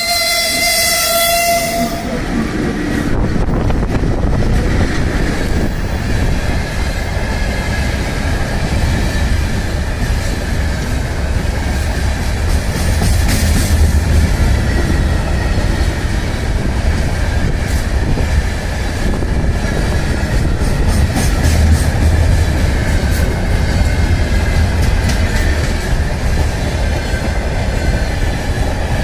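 A VL80 electric locomotive sounds a horn blast for about two seconds. Its freight train then rolls past with a steady loud rumble on continuous welded rail, without the rhythmic clack of rail joints.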